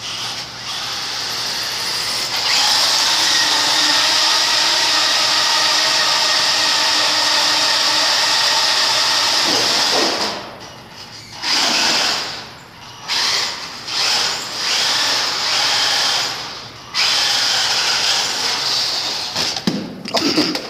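RC buggy's electric motor and drivetrain whining at full throttle for about eight seconds, then in several short throttle bursts with pauses between.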